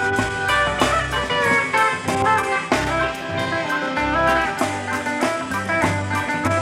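Country-style band instrumental break with no singing: pedal steel guitar carrying the lead with sustained, sliding notes over electric bass and a steady drum beat.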